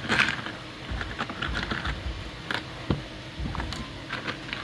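Hands handling 3D-printed plastic case parts and screws: irregular light clicks and knocks, with a louder cluster just after the start.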